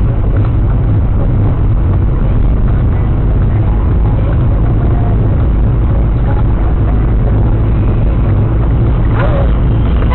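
Steady low rumble of engine and road noise in a moving car, picked up by a dash camera's microphone.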